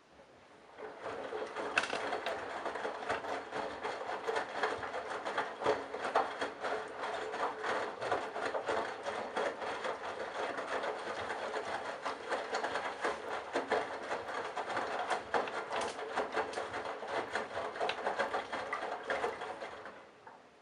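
Candy Bianca washing machine's drum turning for about nineteen seconds, tumbling a wet load of bathrobes and towels with a dense clatter of small knocks and sloshing. It starts about a second in and stops just before the end, one tumble stroke of the wash cycle.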